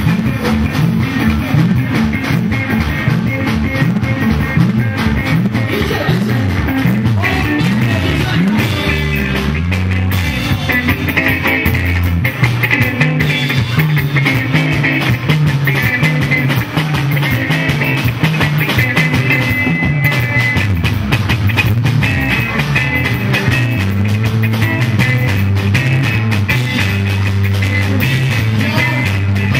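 Live band playing dance music: electric guitars over a moving bass line and a steady, busy drum beat.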